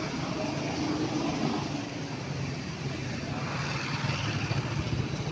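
Street traffic: a motor vehicle's engine running steadily with a low drone over general road noise.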